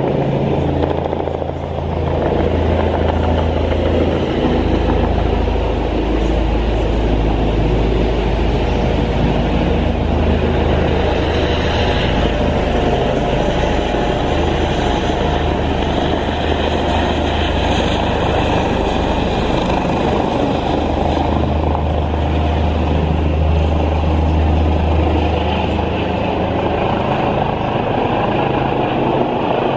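Helicopter coming in to land, its rotors and engine making a loud, steady low drone.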